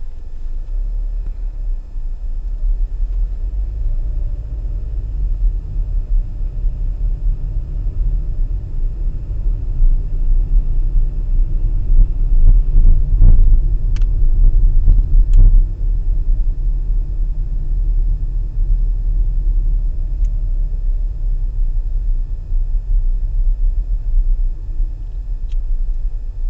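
Low, steady rumble of a car driving along a town street, heard from inside the cabin: engine and tyre noise. It grows louder a little past halfway, with two sharp ticks just after that.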